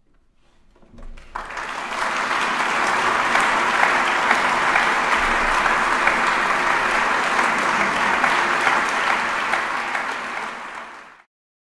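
Concert audience applauding. The clapping swells in about a second in, holds steady, and cuts off suddenly near the end.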